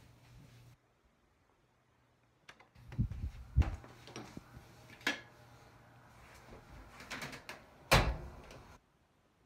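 Handling noise from a phone being carried and moved: rubbing and several knocks and thumps against the phone, the loudest about eight seconds in, after a short stretch of near silence near the start.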